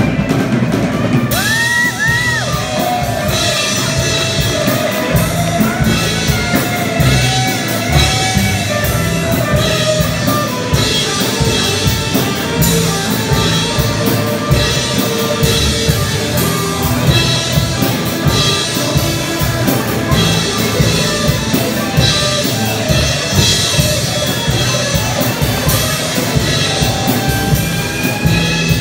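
Live rock band playing: drum kit keeping a steady beat under distorted electric guitars, with bending lead-guitar lines about two seconds in.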